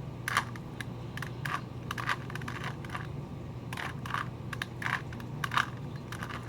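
Plastic Rubik's Cube being turned by hand: the layers click and clack in short, unevenly spaced bursts, about a dozen in all.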